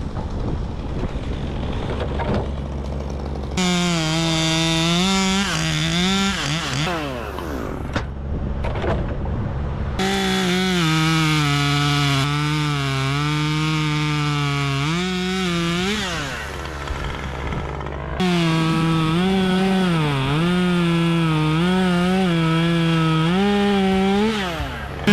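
A two-stroke chainsaw cutting wood at high revs. Its pitch sags as the chain bites and climbs again between cuts, over a steady low engine drone.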